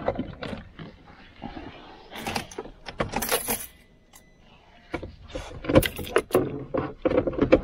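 A run of scattered clicks, knocks and light metallic rattles, like keys jangling, from things being handled by hand. A brief denser rustle comes about three seconds in.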